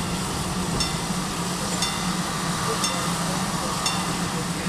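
Steam locomotive under way pulling its train, heard from beside the coaches: a steady hiss and low rumble, with a light click about once a second.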